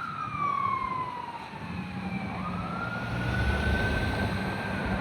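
Fire truck siren on a 2025 Pierce Enforcer ladder truck, wailing. Its pitch falls slowly over about two seconds, then sweeps quickly back up and holds high. A low rumble grows louder under it in the second half.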